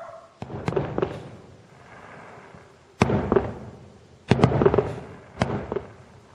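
Fireworks shells bursting far off in four quick groups of sharp bangs, each bang trailing off in a rolling rumble.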